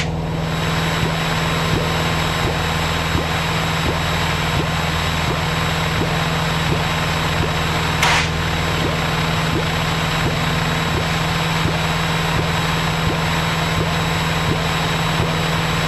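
Piper PA-28 light aircraft's piston engine and propeller droning steadily in flight, heard inside the cockpit. There is a short burst of noise about eight seconds in.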